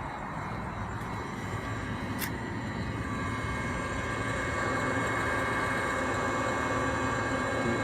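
Webasto diesel engine-water heater beginning its start-up, not yet fired: a steady mechanical whine and hum that builds and gets louder, with a single click about two seconds in.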